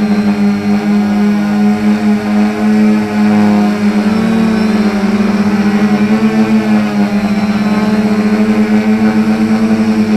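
Quadcopter motors and propellers humming steadily close to the microphone, the pitch wavering a little as the throttle shifts, with a fast pulsing beat.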